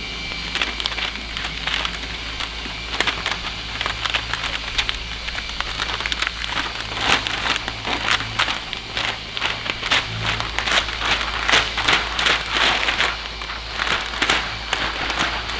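Crinkling and crackling of a sheet of XPEL Ultimate Plus paint protection film and its backing liner being handled and laid onto a car bumper: quick, irregular crackles throughout, over a steady low hum.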